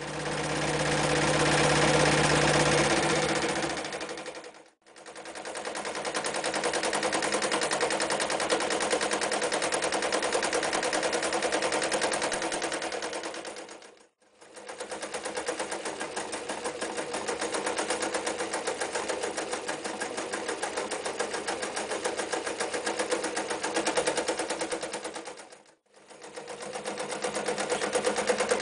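Reads Z233 electric sewing machine running at speed, its needle stitching rapidly through thick layers of denim and, near the end, leather. The sewing comes in runs that stop briefly three times, with a steady motor hum under the first few seconds.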